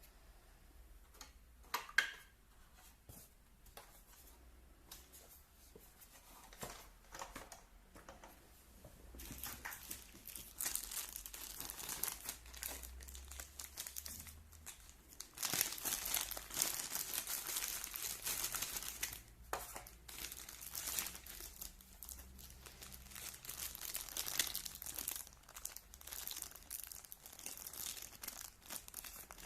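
Packaging being handled, crinkled and torn open: a few light clicks and knocks at first, one sharper click about two seconds in, then about nine seconds in a long stretch of steady crinkling and tearing with a brief pause in the middle.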